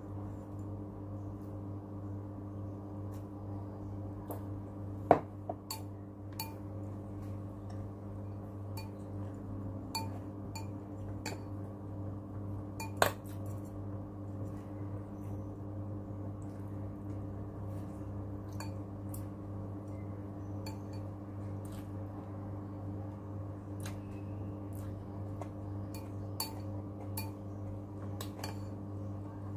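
Chopsticks clicking and scraping now and then against a ceramic bowl while noodles are eaten, with two louder clinks about five and thirteen seconds in. A steady low hum runs underneath.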